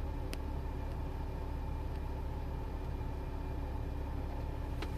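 Car engine idling, a steady low hum heard from inside the cabin. Two brief clicks stand out, one just after the start and one near the end.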